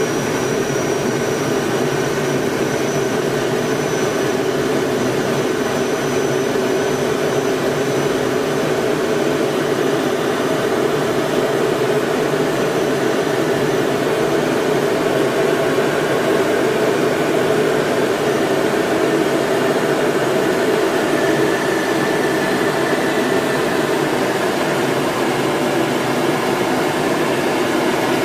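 Steady engine and airflow noise of a military training aircraft heard from inside its cockpit as it takes off and climbs out. A faint high whine sits over the noise in the first dozen seconds or so.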